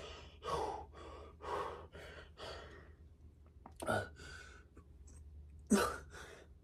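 A man breathing hard from exertion after a set of shoulder lateral raises. Quick breaths come about two a second, then give way in the second half to a few sharper, louder gasps.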